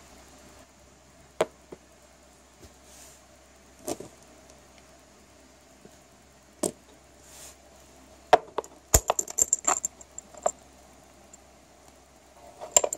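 Clicks and clinks of a glass swing-top jar and its wire bail clasp being handled: a few single knocks, then a quick run of clinks about two-thirds of the way in, and another short cluster near the end.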